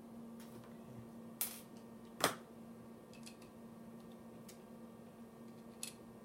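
Small sharp metal clicks and taps from the parts of a Lionsteel SR2 pocket knife and the tools working on it during reassembly: a handful of separate clicks, the loudest a little over two seconds in.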